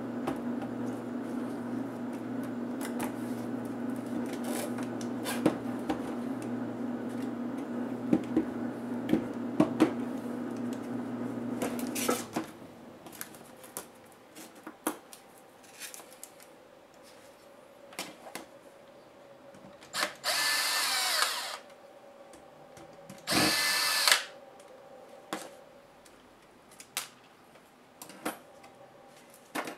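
Small cordless electric screwdriver running in two short bursts about two seconds apart, amid scattered clicks and taps of plastic laptop parts being handled. A steady low hum runs under the first twelve seconds and cuts off suddenly.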